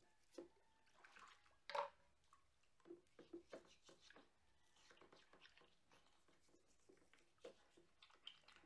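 Brush scrubbing a metal bicycle hub in a sink of soapy water: faint, irregular scratching and sloshing, loudest about two seconds in.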